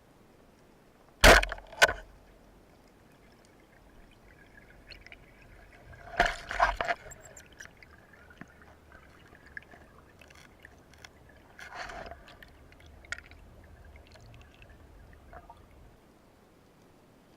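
Water noise picked up underwater: a sharp double splash-like burst about a second in, then bubbling, gurgling bursts around six and twelve seconds over a faint hiss.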